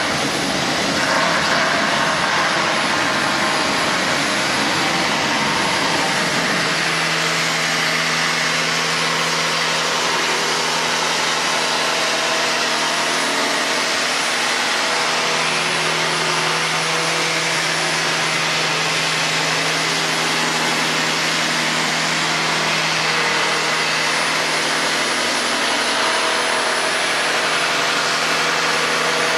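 Handheld belt sander running as it sands a long curved laminated-wood piece, a loud continuous whirring. For about the first seven seconds it is rougher and noisier, then it settles into a steadier tone with a hum.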